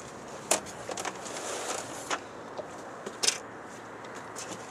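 Several sharp knocks and clatters on a fishing boat as the angler handles the rod and grabs the landing net, over a steady running background noise.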